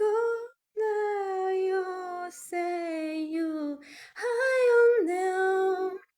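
A woman singing unaccompanied, an improvised melody in long held notes with short breaths between phrases.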